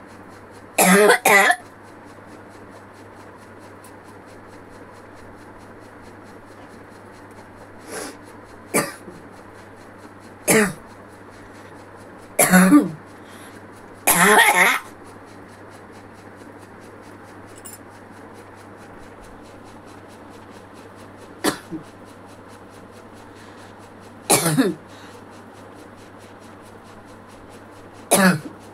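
A person coughing deliberately for a cough challenge, in short single or double coughs spaced a few seconds apart, about nine in all; the longest fit comes about midway. A steady low hum runs underneath.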